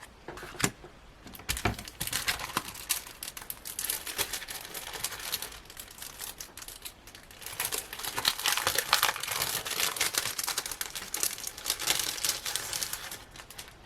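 Packaging crinkling and rustling as it is handled and opened, with a couple of light knocks in the first two seconds; the crinkling grows louder for a few seconds in the second half.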